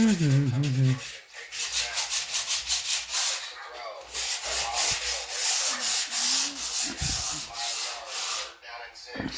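Sanding dried drywall joint compound with rapid back-and-forth scratchy strokes, stopping near the end.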